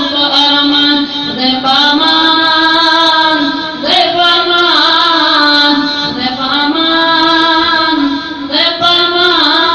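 A single unaccompanied voice chanting a devotional melody in long held phrases, with wavering ornamented notes and short breaks for breath between phrases.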